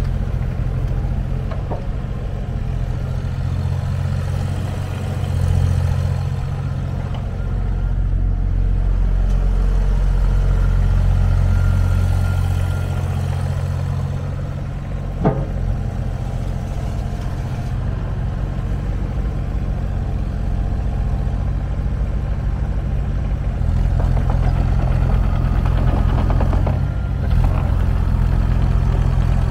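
JCB 8030 mini excavator's diesel engine running steadily, growing louder for a few seconds at a time as if under load, with one sharp knock about halfway through.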